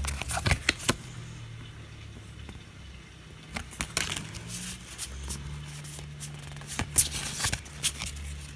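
Foil Pokémon booster pack being handled and opened: scattered crinkles, rustles and small clicks from the wrapper and cards, in a few short clusters.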